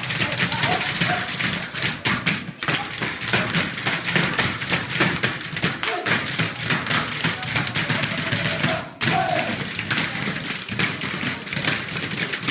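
Tap shoes striking a hard floor in a fast, dense run of taps and heel thumps, a tap dancer rehearsing.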